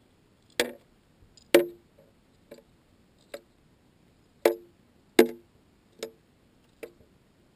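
A series of about eight sharp, irregular clicks and knocks, picked up underwater by a GoPro sealed in its dive housing.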